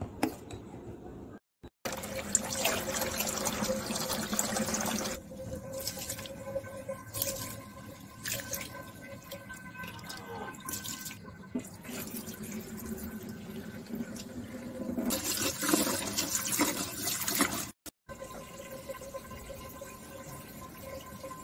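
Water sloshing and pouring as raw rice is washed by hand in a steel pot, in a few short spells, with a faint steady hum underneath.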